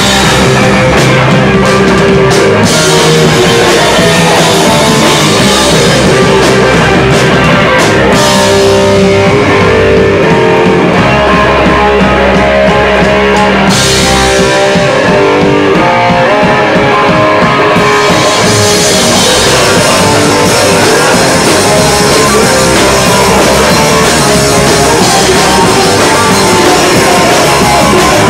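Live rock band playing loud: electric guitar and drum kit.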